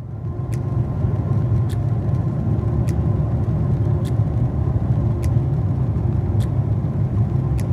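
Steady low roar of jet airliner cabin noise at cruise, the engines and rushing air heard from inside the cabin at a window seat. Faint ticks come a little over once a second.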